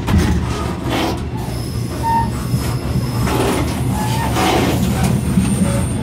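Passenger train running, heard from the gangway between two cars: a steady low rumble with clatter and short high squeals from the car connection, the harsh noise typical of this spot.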